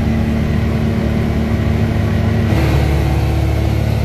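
Side-by-side UTV engine running as it drives along, heard from inside the open cab; about two and a half seconds in the engine note shifts to a different pitch.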